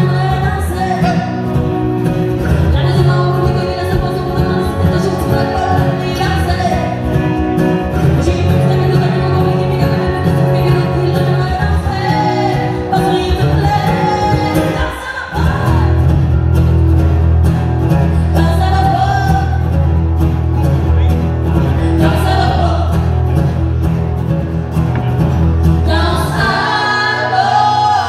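Live acoustic country song: two acoustic guitars strummed with singing from a woman and a man. The music dips briefly about halfway, then comes back with a fuller low end.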